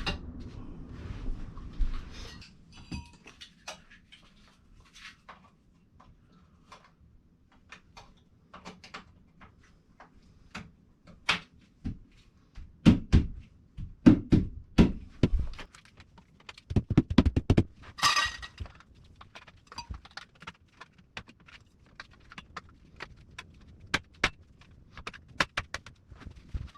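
Plant shelf frame parts being fitted together by hand: a run of irregular clicks and knocks as the rods and connectors go into place, loudest in quick clusters midway, with a brief scrape.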